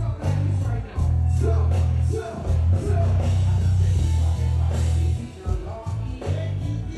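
Live dancehall concert music: a heavy, pounding bass line with a voice singing over it.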